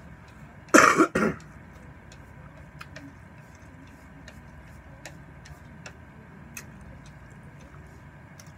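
A man coughs hard twice in quick succession about a second in. After that there are only faint scattered clicks from eating, with chopsticks working against a plate.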